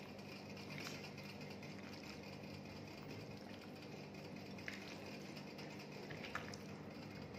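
Faint steady mechanical hum with a few light clicks, while chicken pieces are squished and turned by hand in a spiced curd marinade in a glass bowl.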